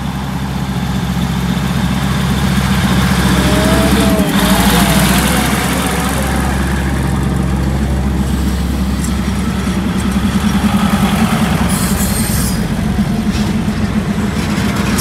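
Diesel-electric locomotive engine of a passenger train running with a deep, steady hum. It grows louder over the first few seconds as the train powers up to leave the platform. A short wavering tone sounds about four seconds in.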